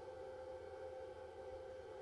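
Faint steady hum with a held mid-pitched tone and a low hum beneath it, from a running green animation laser projector.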